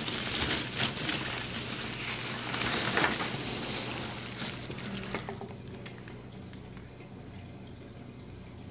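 Polystyrene packing peanuts rustling and a plastic shipping bag crinkling as a hand digs a water-filled coral bag out of a foam shipping box. The rustling dies down about five seconds in, leaving a faint low hum.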